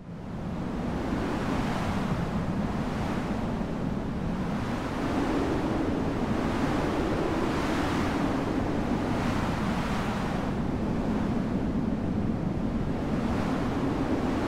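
Strong rushing wind starting abruptly, swelling and easing in slow gusts.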